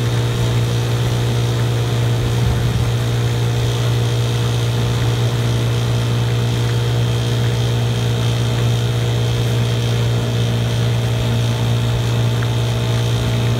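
1961 Evinrude Fisherman 5.5 hp two-stroke outboard motor running steadily under way, pushing the boat at an even speed, with the churn of its wake.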